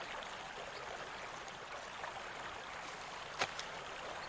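Water falling and splashing steadily from a tiered stone fountain, with one short click about three and a half seconds in.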